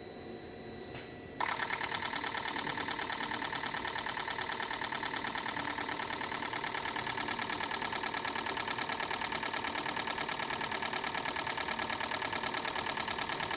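Fuel injectors on an injector test bench start firing about a second and a half in: a fast, steady, even clatter of the injector needles opening and closing during a flow test.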